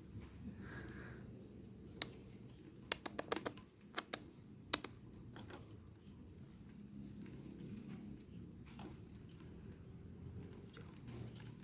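Faint sharp clicks and taps, a few at a time with a quick cluster about three seconds in, over a low steady background rumble. A short high trill of rapid chirps comes near the start and again near the end.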